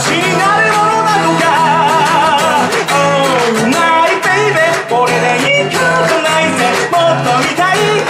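A man singing a song to his own strummed acoustic guitar, his held notes wavering.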